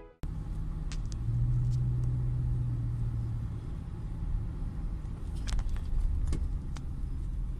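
Car driving in slow traffic, heard from inside the cabin: a steady low engine and road rumble, with an engine hum that swells from about one to three seconds in. A few light clicks or rattles come in the cabin, mostly near the end.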